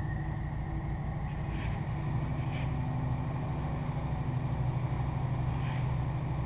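Engines of the car ferry SyltExpress running steadily at the berth: a low, slightly pulsing drone with faint steady hums above it.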